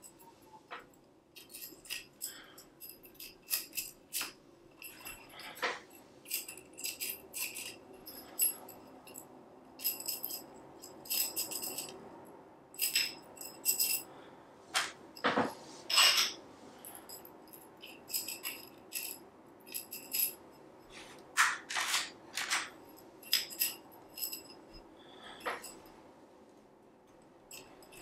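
Tensegrity structure being taken apart by hand: irregular clicks, clinks and rattles as the tubes and their barbed tendon joints are pushed, turned and pulled free, some with a brief ringing jingle.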